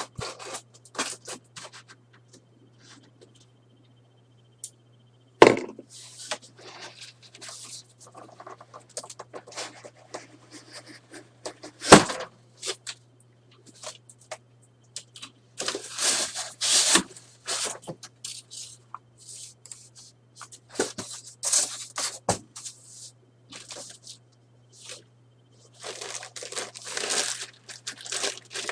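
Cardboard shipping box and packing being torn and pulled open by hand: irregular ripping, crackling and scraping, with two sharp knocks about five and twelve seconds in. A steady low electrical hum runs underneath.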